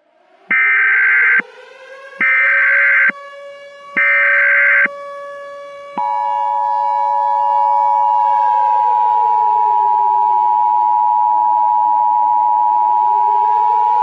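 Emergency Alert System SAME header: three short bursts of warbling digital data tones, then the steady two-tone EAS attention signal held for about eight seconds. Under it, a siren wail slowly rises, holds, then falls and climbs again.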